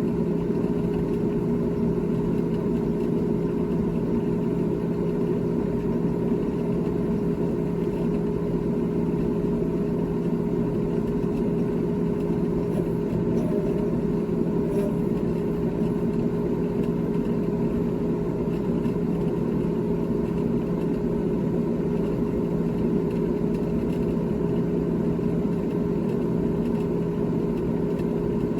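GE GTH18XCTZRBB refrigerator running with a steady mechanical hum and a couple of even, unchanging tones.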